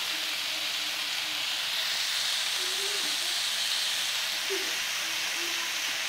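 Marinated chicken tikka pieces sizzling steadily as they sear on a hot nonstick tawa.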